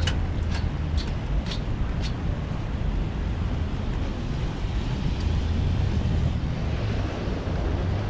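Wind buffeting the microphone, a steady low rumble. About five sharp ticks come roughly two a second in the first two seconds.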